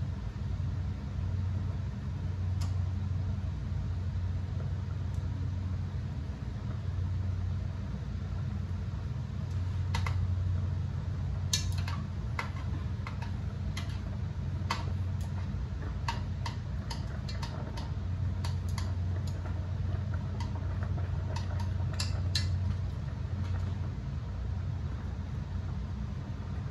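Chopsticks clicking against a steel pot while stirring noodles in boiling water, a run of light irregular taps from about ten to twenty-three seconds in, over a steady low hum.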